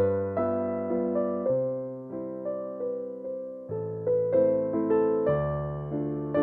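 Background music on electric piano: single notes struck and left to fade, a melody moving over low bass notes that change every second or so.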